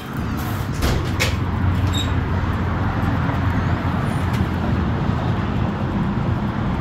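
Wind buffeting a phone's microphone, a loud steady rumble mixed with road traffic noise. Two sharp clicks come about a second in.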